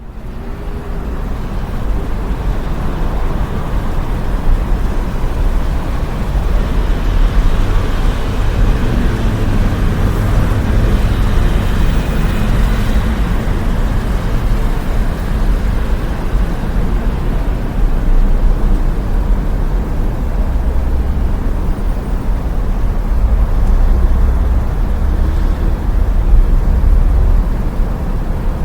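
City street ambience: a continuous rumble of road traffic, swelling and easing as vehicles pass.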